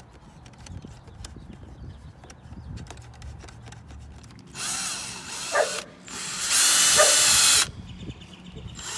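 Power drill running in two short bursts, the first about four and a half seconds in and the second, louder and longer, about six seconds in, each with a steady motor whine. Before them there are only faint clicks of handling.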